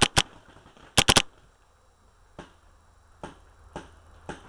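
Paintball markers firing: two sharp shots at the very start and a quick burst of three about a second in, followed by fainter single shots every half second or so.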